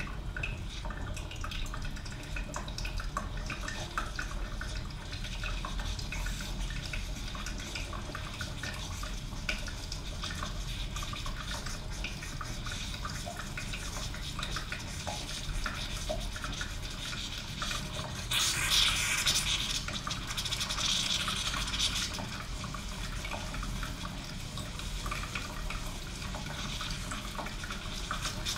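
East German Kaffee Boy K500 coffee machine brewing: irregular dripping and small crackles of heating water over a steady low rumble. About 18 seconds in there is a louder burst of steamy hissing that lasts a few seconds and then dies back.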